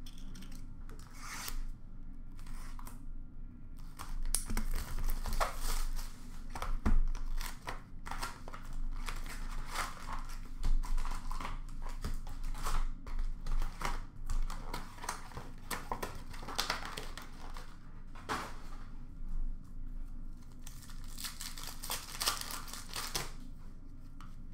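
Upper Deck hockey card packs being torn open: wrappers ripping and crinkling over and over, sparse at first and busier from about four seconds in, with cards being handled.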